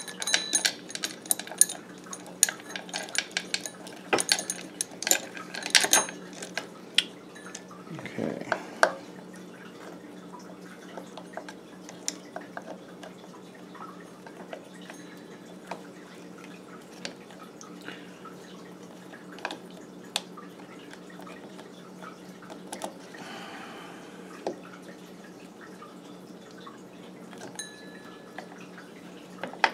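A metal roller chain rattling and clinking as it is handled and fitted over the transmission sprockets in an aluminium engine case. The clinks come thick and fast for the first several seconds, then only an occasional click.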